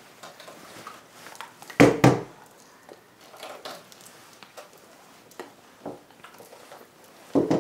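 A single dull bump about two seconds in, then a few faint clicks over quiet room tone.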